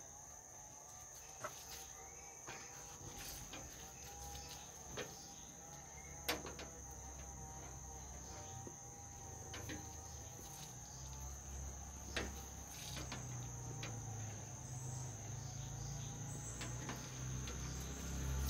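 Steady, high-pitched drone of insects such as crickets, with a few sharp clicks and taps from a hand tool working rubber beading into a metal window frame, the loudest about six seconds in.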